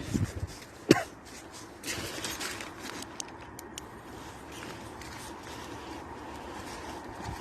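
A sharp knock about a second in, followed by rustling, over a faint steady hum of distant traffic.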